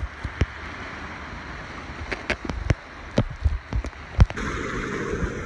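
Sea water lapping and splashing against an inflatable kayak, with wind noise and a dozen or so sharp knocks and slaps scattered through it; the sound changes abruptly about four seconds in.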